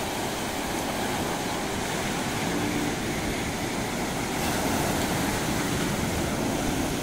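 Sea surf breaking and washing up a sandy beach: a steady rush of waves.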